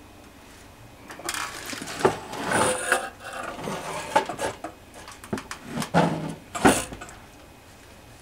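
A Systron Donner frequency counter's metal chassis being handled and turned over on the bench: a run of irregular knocks, rattles and scrapes starting about a second in, with several sharp clunks, the last near the end.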